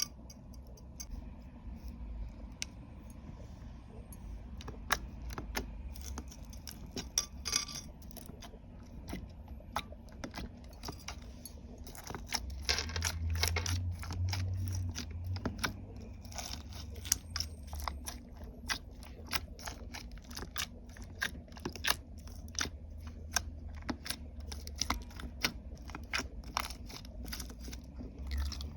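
Slime being squished and mixed by hand, making many small sticky clicks and crackles at an irregular pace, busier and louder for a few seconds around the middle.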